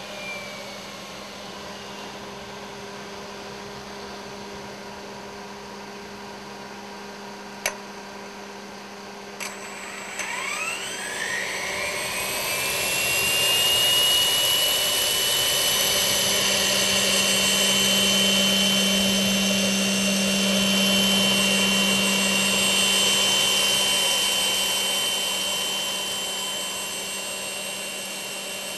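GR-7 experimental turbojet being spun up by its twin electric starter motors under the control of its ECU. Two sharp clicks come first, then a whine rising over about four seconds to a steady high pitch that holds, over a steady low hum.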